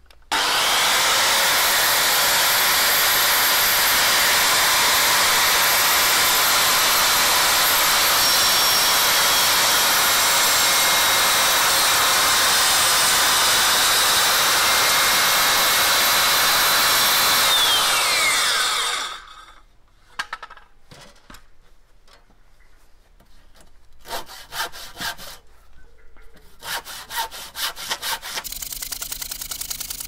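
Handheld electric circular saw running steadily while cutting a timber post for about eighteen seconds, then winding down with a falling whine. After a pause, a handsaw rasps through the wood in quick back-and-forth strokes near the end.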